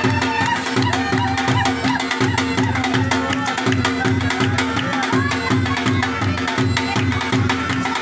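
Background music: a folk-style tune with a regular hand-drum beat over a steady held drone.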